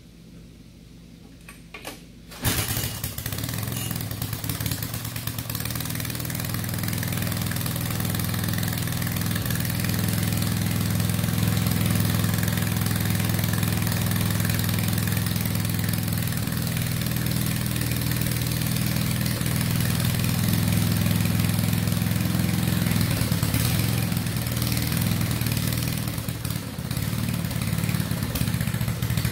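Craftsman rototiller's 8 hp Tecumseh single-cylinder engine pull-started, catching about two seconds in and then running steadily on its freshly cleaned carburetor, with a brief dip in the sound near the end.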